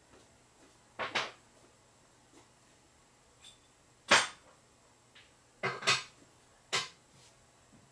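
Five or six short, sharp knocks and clatters of parts and tools being handled in a workshop, spaced a second or more apart, the loudest about four seconds in.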